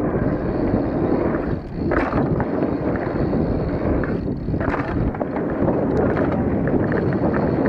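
Full-suspension mountain bike running down a dirt trail: steady wind rush on the microphone mixed with tyre noise and bike rattle, with a few sharp knocks from the bike over bumps.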